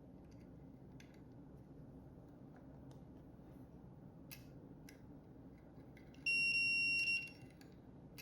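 A multimeter's continuity tester sounds one steady high-pitched beep about a second long near the end, signalling continuity between the probes. Before it come a few faint clicks of handling.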